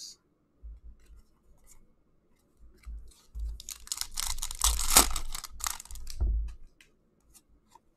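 Foil wrapper of an SP Authentic hockey card pack being torn open and crinkled by hand: a stretch of crackling and tearing from about three seconds in, loudest near the middle, lasting some three seconds. Before it, only faint ticks of cards being handled.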